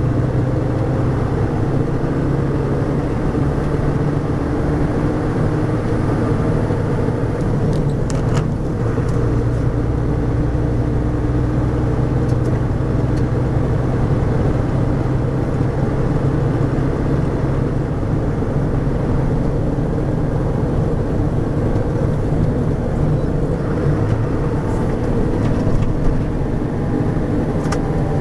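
MAN M39 18ML truck under way: its D0836 six-cylinder diesel running steadily, with a whine from the Eaton Roadranger gearbox and a differential that sounds awful from lack of maintenance. The whine rises in pitch near the start and falls near the end.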